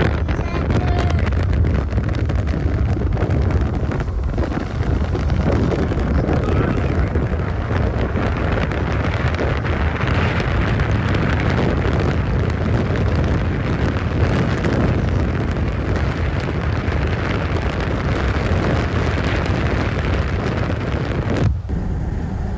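Loud, steady rushing of strong wind buffeting the microphone, with a heavy low rumble. It cuts briefly near the end, then a similar rushing noise carries on.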